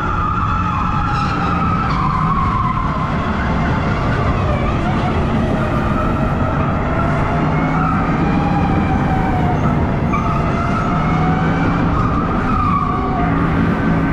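Electric go-kart running at speed through curves: the motor whines, its pitch drifting up and down as the kart speeds up and slows, over steady tyre and rolling noise.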